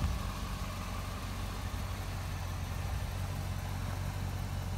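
2006 Chevrolet Corvette's LS2 V8 idling steadily, with no abnormal engine noises. A brief click comes right at the start.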